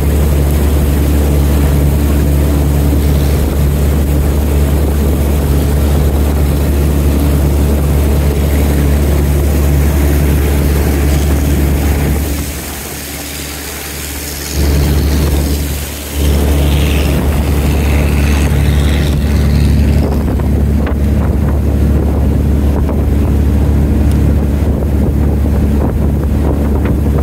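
Boat engine running steadily under way, a loud low hum that drops away for a couple of seconds about halfway through and again briefly just after.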